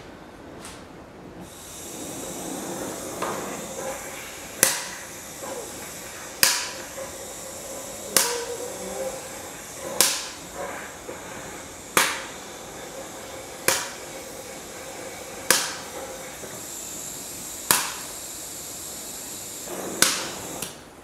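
A torch flame hissing steadily as it heats a seized, rust-bound lower shock bolt to free it. Sharp knocks come about every two seconds, around ten in all.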